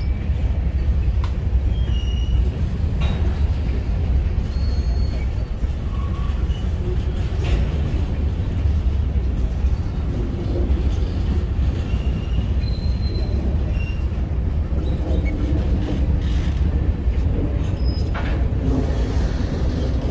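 Loaded covered hopper cars of a BNSF grain train rolling past: a steady low rumble of steel wheels on rail, with brief high squeals now and then.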